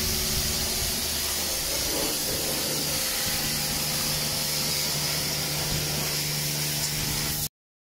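High-pressure washer lance spraying water onto a quad bike: a steady hiss of spray over a low, even hum, cutting off abruptly near the end.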